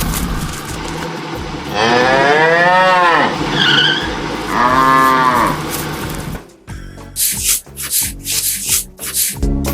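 A cow mooing twice, each a long call that rises and then falls in pitch, over a steady rumbling background. Music with a plucked, rhythmic beat comes in about six and a half seconds in.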